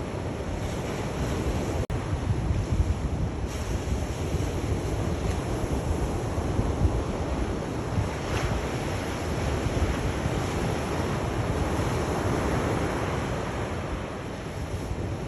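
Sea surf washing in steadily, a continuous rush of waves with a deep, wind-buffeted rumble in the low end, swelling and easing slowly; the sound cuts out for an instant about two seconds in.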